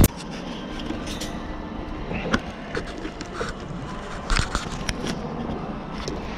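Low background noise with a few short clicks and knocks and faint voices.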